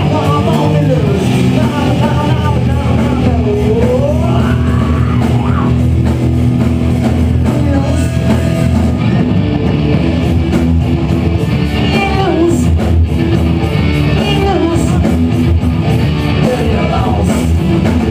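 Live rock band playing loud and without a break: electric guitars over bass and drums, with pitch-bending lead lines weaving through.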